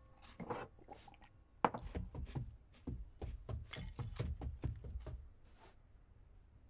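A quick, irregular run of knocks and clicks with low thuds under them, starting about one and a half seconds in and stopping about five seconds in.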